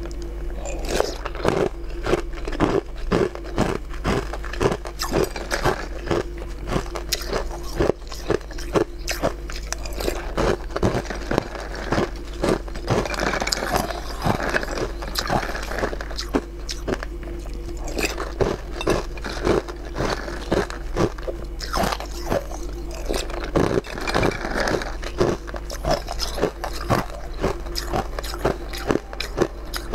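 Close-up eating sounds from a jelly-like food taken by spoon: biting and chewing, with many sharp, crisp crunches and clicks. A steady low hum runs underneath.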